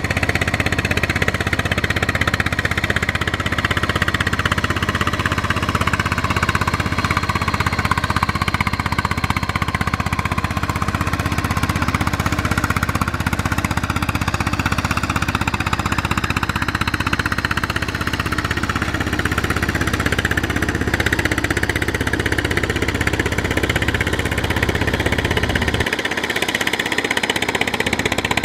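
Single-cylinder diesel engine of a riding power tiller with steel cage wheels running steadily under load as it works a rice paddy, a constant low engine hum. Near the end the deepest part of the hum drops away abruptly.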